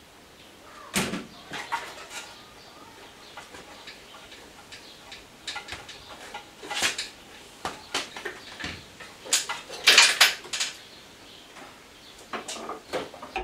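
Scattered metallic clicks, clinks and knocks of hand tools and parts being worked in a car's engine bay, with a denser cluster of clatter about ten seconds in.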